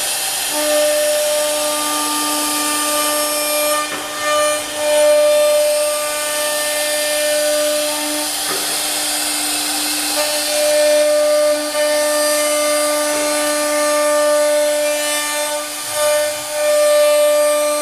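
CNC router's air-cooled spindle running with a steady whine while the machine cuts wood, with a hissing cutting noise that swells louder twice, about four seconds in and again near the end.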